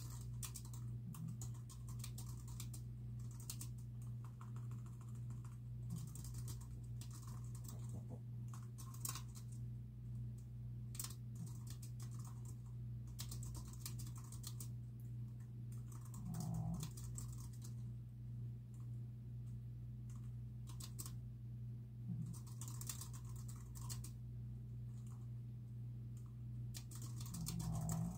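Fingers typing on a computer keyboard: uneven runs of key clicks with short pauses, over a steady low hum. Twice, about midway and again near the end, a brief low sound rises above the typing.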